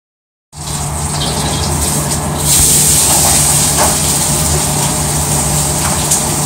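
Food sizzling in a hot wok over a gas burner: a loud, steady hiss with a low rumble underneath and a few light crackles. It starts abruptly and cuts off suddenly at the end.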